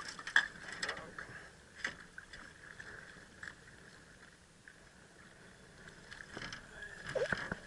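Redfish (red drum) splashing and thrashing at the surface beside a small boat as it is played toward a landing net, with a few sharp knocks and splashes, the loudest about half a second in and again near the end.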